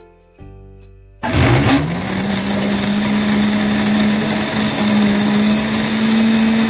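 Countertop blender switched on about a second in, its motor spinning up quickly to a steady high-speed hum as it blends a liquid mix.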